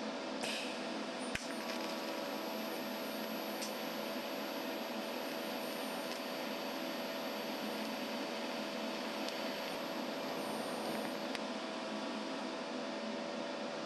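TIG welding arc on steel tubing, a steady hiss with a faint hum, joining two tube sections end to end. A sharp click about a second and a half in, after which a faint high whine runs until near the end.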